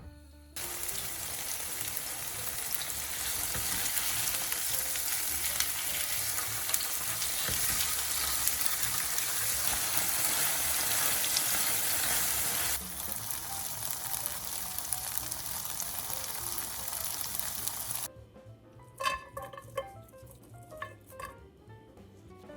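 Tofu slices frying in oil in a pan: a steady sizzle that starts about half a second in, drops a little in level about two-thirds of the way through, and cuts off abruptly near the end. A few light clicks and short plucked notes follow.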